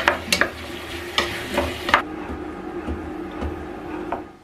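A wooden spatula stirs chicken and vegetables sizzling in a pot, with sharp knocks and scrapes against the pot. About two seconds in, the sizzle cuts out and the quieter stirring of thick cream stew follows, with a few knocks and a steady hum underneath.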